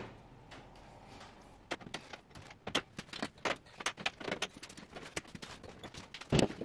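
Hand wire cutters snipping and working the spreader's cage-wire mesh: a string of irregular sharp metal clicks and small rattles, starting about a second and a half in, with the loudest snap near the end.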